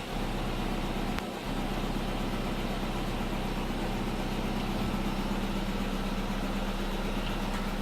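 Steady low mechanical hum from a Fiat Stilo, with a brief dip and a faint click about a second in.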